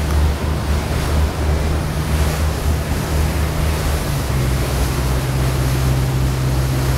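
Boat engine droning steadily under loud wind rush on the microphone and the wash of water; the engine note dips slightly about four seconds in.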